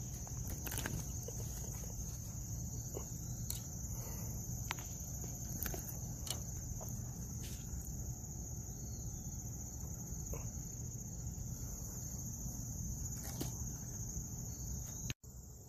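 Steady high-pitched chorus of insects droning without a break, over a low rumble, with a few faint clicks from handling.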